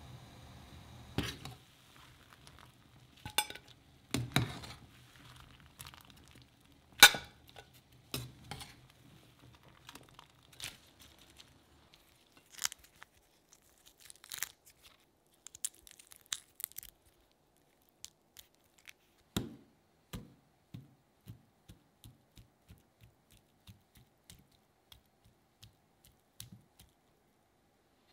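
Cooked shrimp being peeled by hand: shells cracking and tearing in scattered crackles and sharp clicks, with a faint low rumble under the first part.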